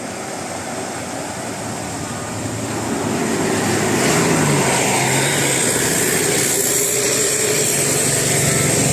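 A bus engine running and growing louder as the bus approaches, levelling off about four seconds in.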